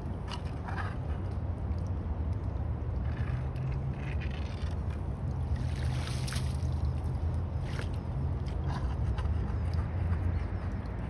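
Sloshing and splashing of shallow floodwater as a long-handled tool is worked through it, dragging up clumps of wet pine straw and leaves to clear a clog, with the biggest splash about six seconds in. A steady low rumble runs underneath.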